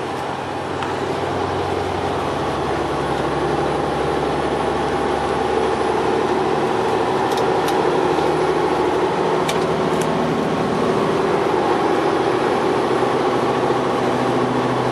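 Engine and road noise inside a moving truck's cab at highway speed: a steady hum that grows a little louder over the first few seconds. A few faint sharp ticks come between about seven and ten seconds in.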